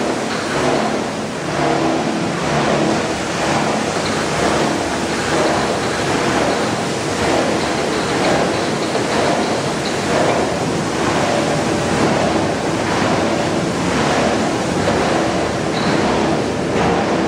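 PET bottle washing line running: water churning in a float-sink washing tank as the paddle drum pushes plastic flakes through it, over a steady machine hum.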